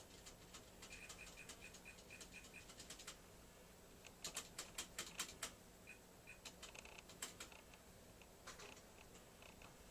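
Keys being typed on the StarWriter Pro 5000 word-processing typewriter's keyboard: a run of sharp key clicks, most with a short high beep. A louder, quicker flurry of keystrokes comes in the middle, followed by a few scattered presses.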